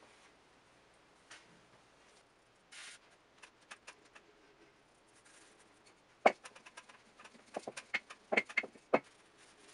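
Wooden rolling pin clicking and knocking on a wooden board as a small disc of bao dough is rolled out, a quick run of sharp taps in the second half. Before that, soft taps and rustles of hands pressing the dough flat.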